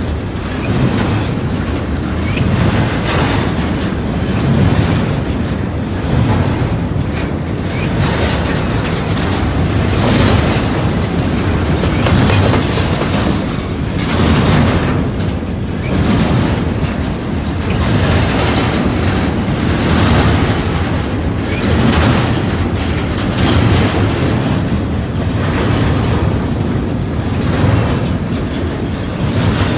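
Double-stack intermodal container train rolling past close by: a loud, steady rumble and clatter of steel wheels on rail, swelling about every two seconds as the cars go by.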